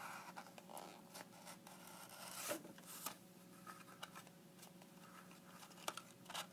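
Faint rustling, scraping and light clicks of packaging being handled and opened.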